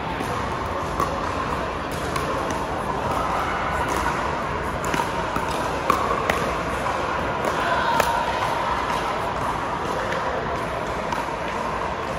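Pickleball rally: paddles striking a plastic ball in a string of sharp pops, the sharpest about six and eight seconds in, over a steady background of voices in a large indoor hall.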